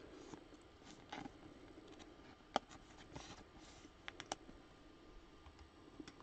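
Faint clicks and taps of trading cards being handled and set up on a card display stand, with one sharper click about two and a half seconds in and a few quick ones around four seconds.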